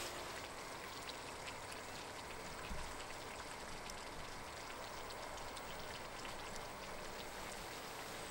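Steady soft hiss of outdoor background noise, with a few faint scattered ticks.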